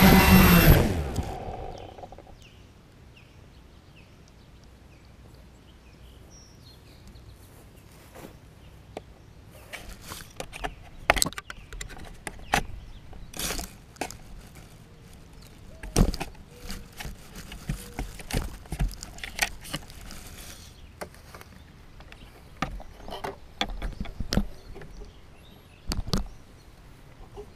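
Quadcopter motors winding down and stopping in the first second or so. Then a quiet stretch, followed by scattered irregular knocks, clicks and rustles as the landed drone sits in the grass and is handled and picked up.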